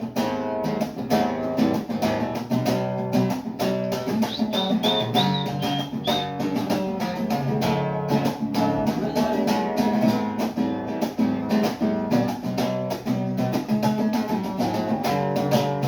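Acoustic guitar strummed in a steady rhythm, an instrumental passage of an unplugged song with no singing. A brief high wavering tone sounds over it about four seconds in.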